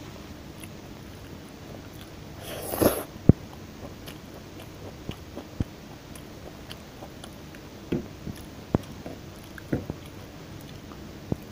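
Close-up eating sounds: a person biting and chewing deep-fried pandan chicken, with one louder crunchy bite about two and a half seconds in, a sharp click right after it, then scattered soft mouth clicks and smacks.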